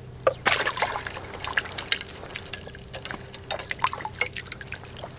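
Irregular splashes, drips and trickles of water as a small crucian carp is lifted out of the water on the line.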